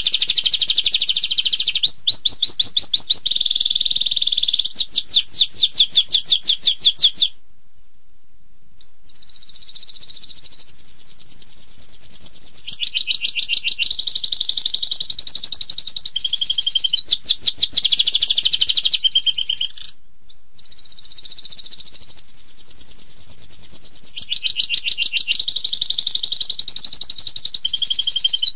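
Domestic canary singing a long, near-continuous song of fast trills and rolls, broken by short pauses about seven seconds in and about twenty seconds in.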